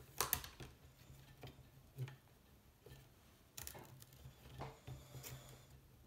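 Stripped willow withies clicking and tapping against one another and a wooden board as they are bent and woven by hand: scattered light clicks, the loudest a third of a second in.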